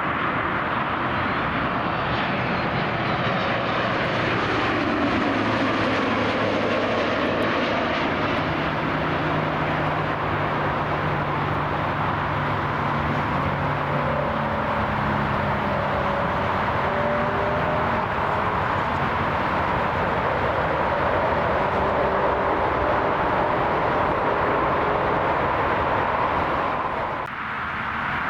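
Jet airliner's engines as the aircraft passes: a loud, steady rushing roar with whining tones that fall in pitch during the first few seconds, then hold steady. The sound dips briefly near the end.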